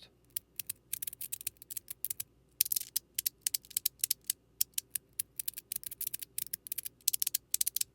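Small metal fidget sliders being slid back and forth along their plates, giving runs of sharp clicks and crunchy scraping that come in bursts. One slider has stainless steel plates and the other Teflon plates; the Teflon plates give more crunch, which is typical.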